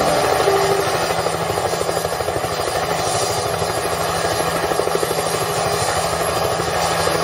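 Helicopter running on the ground with its main rotor turning: a rapid, even chopping pulse over a steady engine hum, the helicopter idling before take-off.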